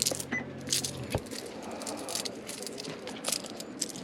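Coins clinking and jingling as they are handled and counted out for payment, with a dull thump about a second in.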